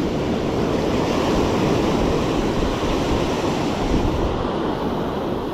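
Surf washing on the beach, a steady rushing noise, with wind buffeting the microphone.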